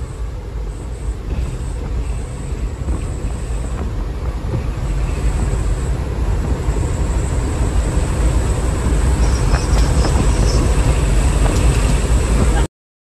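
Truck engine and road noise heard inside the cab while driving at speed: a steady low rumble that grows gradually louder, then cuts off abruptly near the end.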